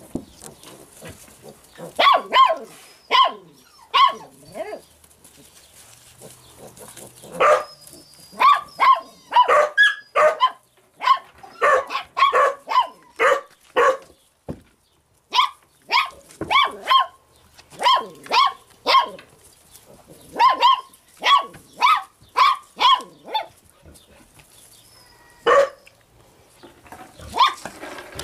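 Laika puppies yapping in quick runs of short, high barks, with brief pauses between the runs.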